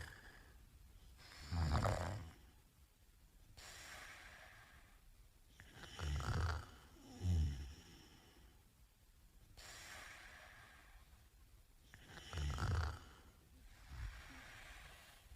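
A man snoring in his sleep: loud rasping snores with a low rattle, coming every four to five seconds, one of them doubled, with quieter breathing between.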